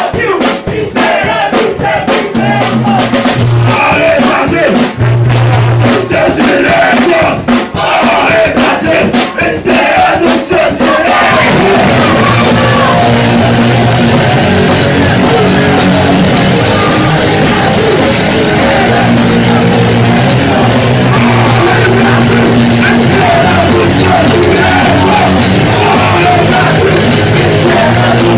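Punk rock band playing live, with loud shouted singing. For the first ten seconds or so drum hits and low bass notes carry the song. Then the whole band comes in with dense, loud distorted guitar.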